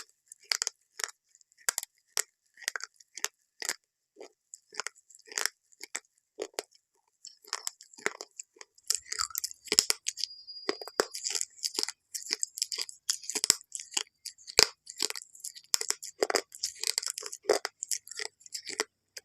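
Close-up crunching of something brittle: a run of irregular, crisp crunches, sparse at first and much denser from about halfway.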